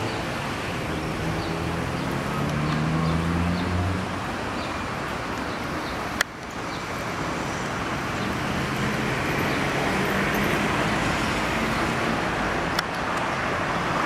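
Steady road traffic noise, with one vehicle's engine rising in pitch over the first few seconds. A single sharp click comes about six seconds in.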